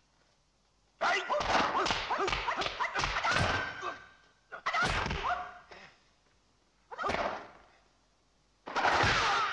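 Martial-arts film fight sound effects: quick whip-like punch and swish hits come in four flurries, the first and longest about a second in, with high-pitched yelping battle cries (kiai) mixed in. The first second is near silent.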